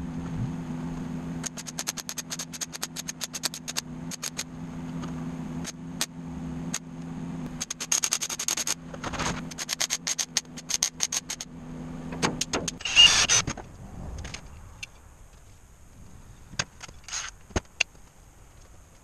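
Workshop noise during welding of stainless steel sheet panels: a steady hum with rapid clicks and short crackling bursts. The hum stops after a loud burst about thirteen seconds in, leaving a few scattered clicks.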